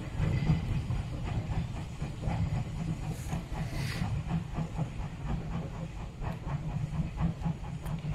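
Small saddle-tank steam locomotive working away under power, chuffing with regular exhaust beats over a low rumble and hiss of steam. The steam hiss swells about three to four seconds in.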